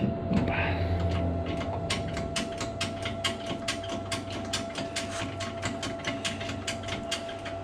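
Workshop press being worked to push a spring ring home on a steering column: a fast, even run of sharp mechanical clicks, about five a second, over a steady hum.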